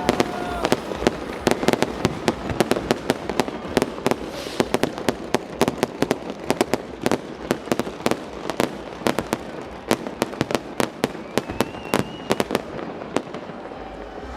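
New Year's Eve fireworks and firecrackers going off in a dense, continuous barrage of bangs and crackles, many per second, with a faint whistle about eleven seconds in.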